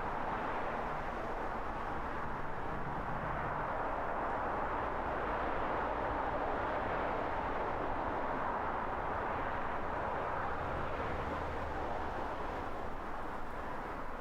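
Car driving on a road: steady tyre and road noise with a low rumble underneath.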